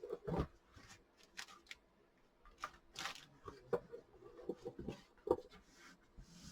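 Cardboard jigsaw puzzle pieces being handled: irregular taps, clicks and short rustles, the sharpest just after the start and about five seconds in.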